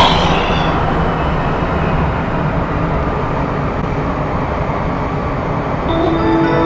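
Metro train running, a steady rumbling ride noise heard from inside the carriage. A few steady tones come in near the end.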